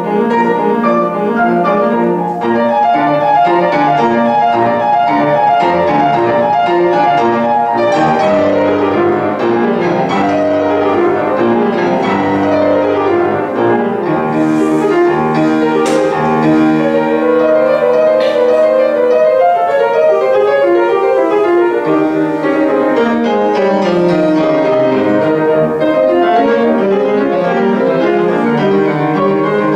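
Grand piano played solo: a fast, dense passage with rapid rising and falling runs over full chords.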